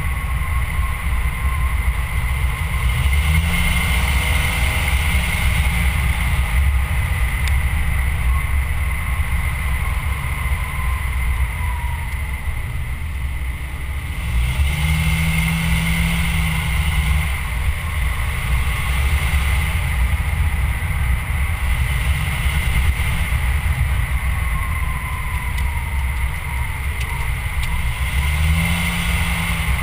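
A vehicle driving along a winding road: wind and road noise rushing over the microphone, with the engine note rising briefly three times as it pulls out of bends.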